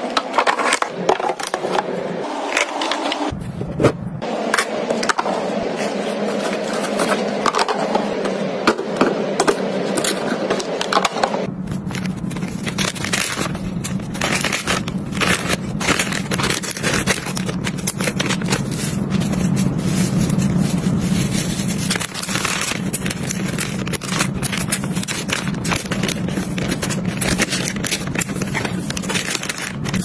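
Handling of clear plastic storage boxes: close-up tapping, clicking and scraping of plastic on a hard surface. About eleven seconds in it gives way to steady rustling and crinkling of a plastic food bag and paper towel as cut vegetables are wrapped.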